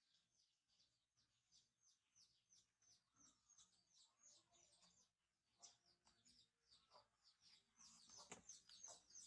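Faint, quick chirping of small birds, several short chirps a second, growing louder near the end.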